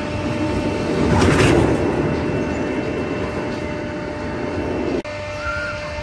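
A roller coaster train rumbling past on its track, loudest about a second and a half in and then fading. It cuts off suddenly about five seconds in.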